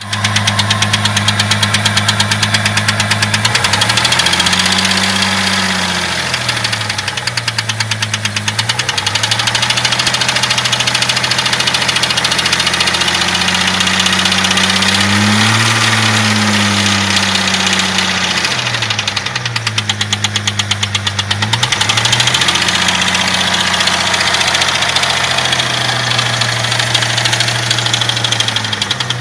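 Jeep 4.0 straight-six running with a rapid knocking through it, a knock that shows up when the engine is cold. The engine speed rises and falls a few times.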